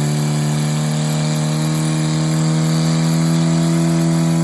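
A motor running steadily, its pitched hum slowly rising.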